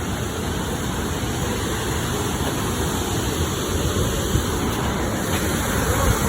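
Steady roar of rushing water from a creek or waterfall, an even noise with no breaks.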